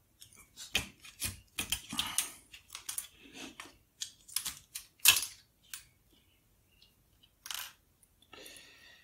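Small hard objects clicking and rattling as a hand picks through loose parts on a work mat: a quick run of sharp clicks for about five seconds, then a few scattered ones.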